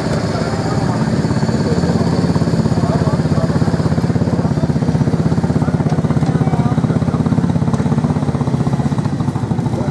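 Cruiser motorcycle engines running at low revs as the bikes roll off slowly, a steady, fast-pulsing low engine rumble.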